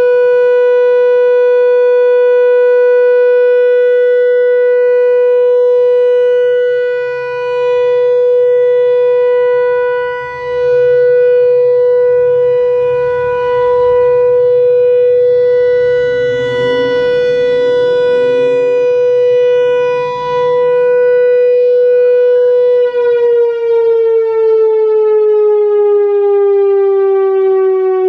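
Whelen WPS-4004 electronic outdoor warning siren, on an analog ESC-864 controller, sounding its steady alert tone: one held pitch that dips briefly in loudness a few times. About 23 seconds in, the pitch starts to fall steadily as the one-minute alert winds down.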